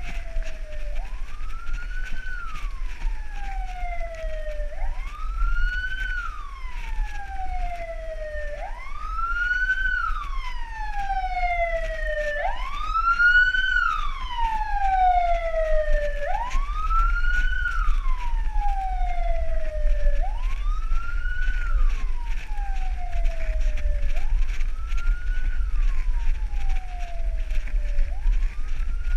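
Emergency vehicle siren in a slow wail, each cycle rising quickly and then sliding down slowly, about one cycle every four seconds; it is loudest around the middle and a little fainter near the end. A steady low rumble runs underneath.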